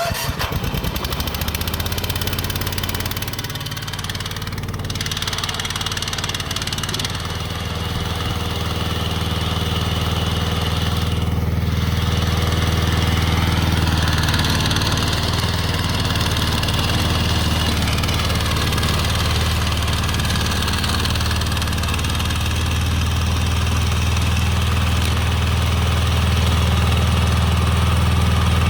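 Remote-control slope mower running steadily, its engine note holding even and growing slightly louder toward the end.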